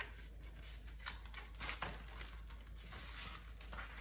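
Pages of a picture book being turned and handled: a series of short, irregular paper rustles.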